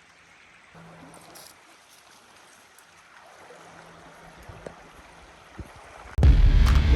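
Quiet low hiss with a faint steady hum and a few light clicks. About six seconds in, loud music with heavy bass cuts in suddenly.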